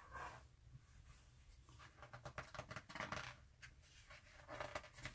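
Faint rustling and a few soft scrapes of a hand handling and sliding over the paper pages of a large art book.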